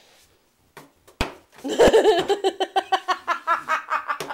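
A sharp slap about a second in, pizza dough hitting the wooden table, followed by loud laughter in quick, even pulses that runs on to the end.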